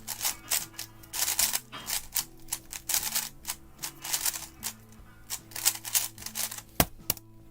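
Rapid, irregular clicking and clacking of a non-magnetic Gan 11 Air 3x3 speedcube being turned fast during a timed solve, with a single sharp click near the end. A low steady hum comes and goes underneath.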